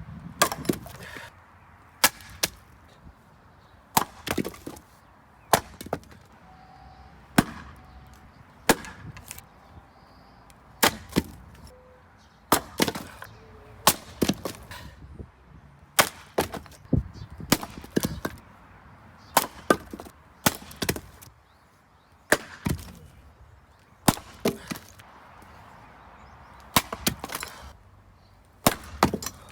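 Firewood being split by hand: a long run of sharp wooden cracks as the blade strikes and splits the rounds, one every one to two seconds, often in close pairs.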